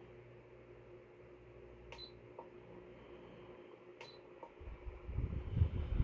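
Hanil electric fan running with a steady hum, a sharp click about every two seconds, each followed by a fainter tick. A loud low rumble sets in near the end.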